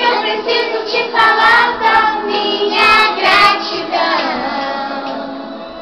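A group of young children singing together in Portuguese, with music behind them.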